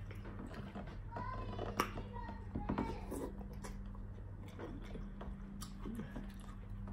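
Quiet eating sounds: chewing, with scattered small clicks and cracks of king crab leg shell being handled and picked apart by hand. A steady low hum runs underneath.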